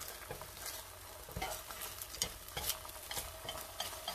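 Chopsticks and a spatula tapping and scraping against a nonstick frying pan while a rice-flour sheet (bánh cuốn) is rolled up in it, over a steady sizzle of the hot oiled pan. The taps come at irregular moments throughout.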